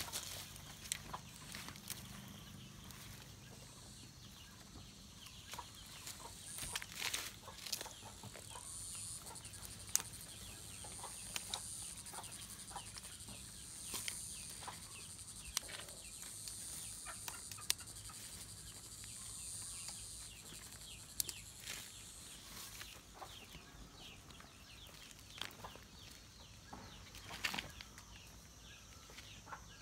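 Chickens clucking, with many short clicks and rustles from leafy moringa branches and pods being gathered by hand. A steady high hiss runs through the middle part.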